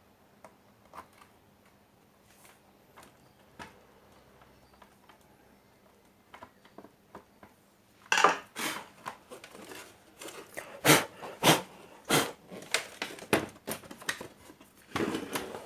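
Hard parts of a TV being handled on a workbench: scattered faint clicks at first, then a run of loud, sharp clicks, knocks and clatters from about eight seconds in.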